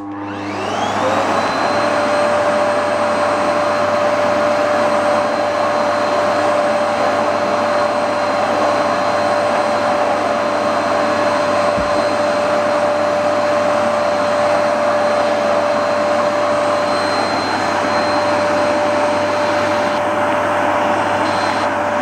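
Canister vacuum cleaner switched on: its motor spins up with a rising whine over the first second and a half, then runs at a steady pitch.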